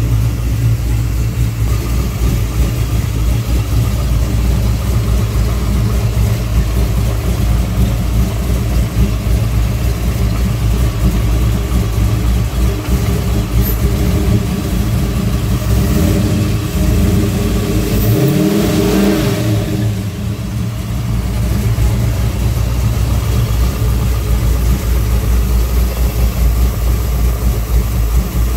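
Car engine idling steadily, with one rev a little past the middle that rises in pitch and drops back to idle. No popping is heard from the newly replaced power steering pump; the owner puts that down to the new serpentine belt stretching and breaking in.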